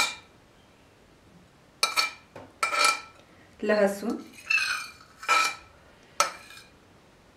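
Steel spoon scraping and knocking against a ceramic plate as chopped green chilli and garlic are pushed off into a bowl: about five short scrapes, each with a brief ringing clink.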